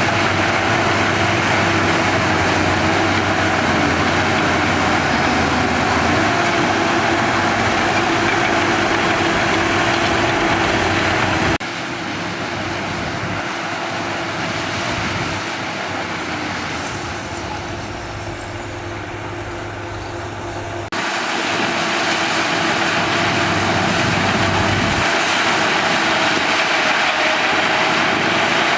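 Shantui DH17B2 bulldozer's diesel engine running steadily under work, with a steady whine over the rumble. The sound drops abruptly and gets quieter about 12 s in, then jumps back to full level about 21 s in.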